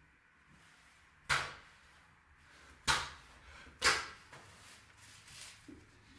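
Three sharp knocks, the first about a second in, the next two about a second and a half and then a second apart, each dying away quickly.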